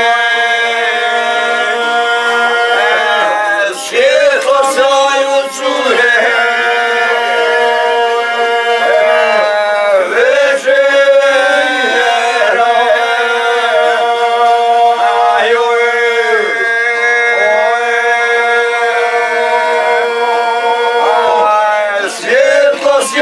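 A group of men singing together in long drawn-out notes over a steady held tone. Short sliding breaks about 4, 10 and 22 seconds in mark where new phrases begin.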